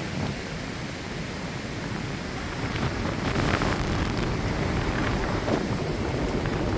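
Strong wind gusting and buffeting the microphone with a low, rumbling rush that grows louder about three seconds in.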